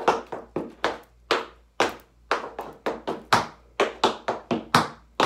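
Tap shoes striking a wooden floor in quick, uneven clusters of sharp taps, several a second: five-point riffs danced travelling around a circle.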